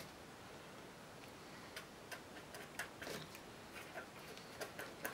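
Felt-tip marker writing on paper: faint, irregular short strokes and taps of the tip on the sheet, coming more often from about two seconds in.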